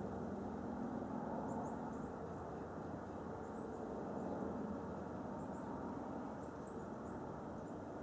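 Outdoor ambience: a steady low rushing background with faint, short high-pitched chirps scattered through it.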